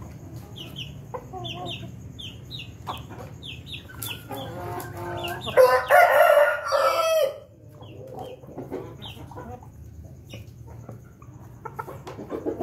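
An Ayam Ketawa (laughing chicken) rooster crowing once, about four seconds in: a choppy, stuttering start that runs into a loud held crow lasting about three seconds. Around it, roosters cluck softly while pecking feed from a bowl.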